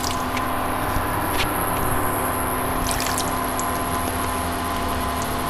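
Water trickling from a small cup into a nonstick frying pan on an induction cooktop being heated to boil, over a steady electrical hum with a few faint clicks.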